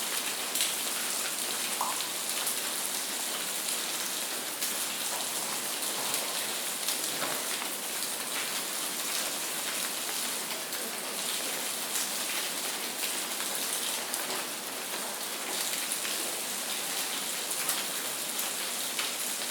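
Steady rain falling, an even hiss with scattered individual drop ticks, constant in level throughout.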